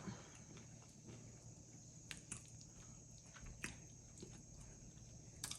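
Quiet chewing of nachos: a handful of faint mouth clicks over near silence.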